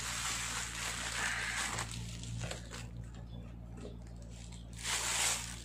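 Plastic bubble wrap crinkling and rustling as it is handled and pulled open, with a louder rustle about five seconds in.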